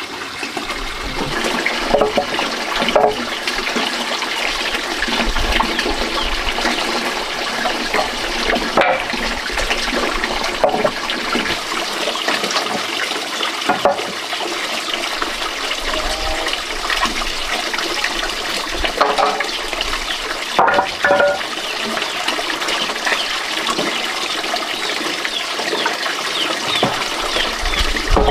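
Steady rush of running water, with a few brief, short sounds over it.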